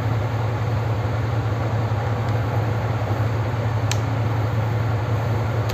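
Steady low machine hum, with a single light click about four seconds in.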